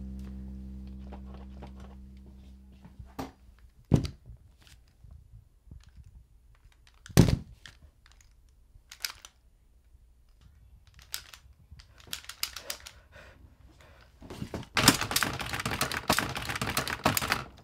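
A sustained synth chord fades out, followed by scattered knocks and clacks of hard objects, two of them loud. Near the end, a dense rapid clatter of computer keyboard keys being mashed with pistols held in both hands.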